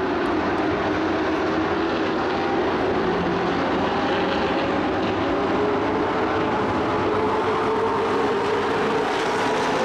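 Engines of several dirt-track racing trucks running at speed around the oval, a steady loud drone whose pitch drifts up and down as the trucks pass.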